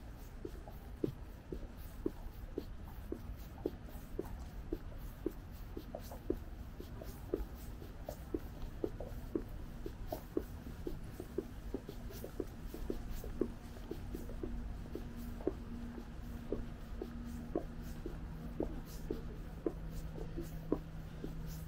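Footsteps on pavement at a steady walking pace, about two steps a second, over a low city rumble. A faint steady hum comes in about halfway through.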